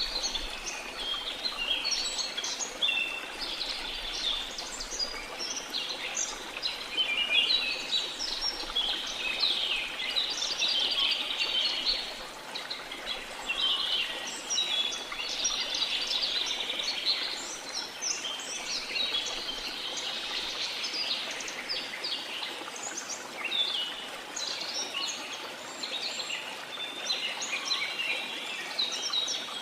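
Rain forest ambience: many birds chirping and calling over one another without pause, over a steady rush of flowing river water.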